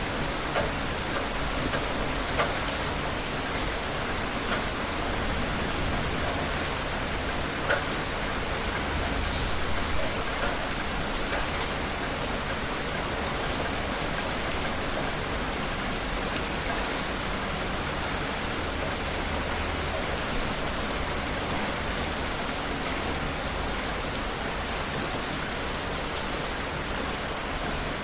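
Heavy rain falling steadily, with scattered sharp taps of single drops striking close by, more frequent in the first half.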